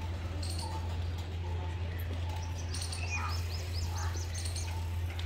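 Birds chirping in short bursts of quick, high rising notes, most busily about three to four seconds in, over a steady low hum.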